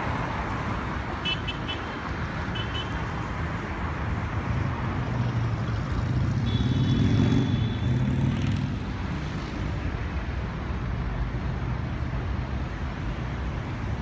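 City street traffic: a steady rumble of passing cars that grows louder for a couple of seconds past the middle. A few short high chirps come in the first three seconds, and a brief high whine sounds in the middle.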